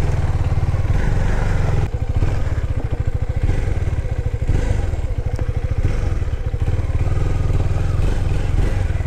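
KTM Duke 390's single-cylinder engine running steadily, with a brief dip about two seconds in.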